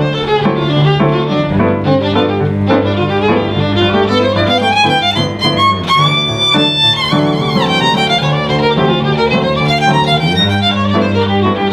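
Live acoustic piano trio playing: a violin carries the melody over sustained cello bass notes and a Yamaha piano.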